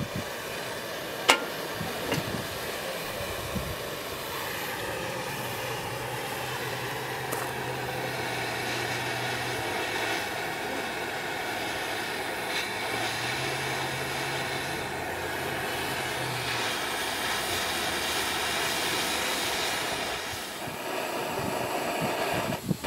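Gas brazing torch burning with a steady rushing hiss, with one sharp click about a second in.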